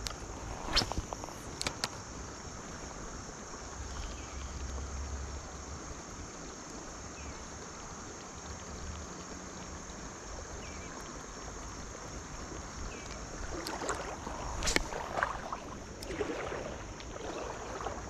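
Creek water running in a steady hiss, with a few sharp clicks about a second in and again near the end, and water sloshing and splashing over the last few seconds.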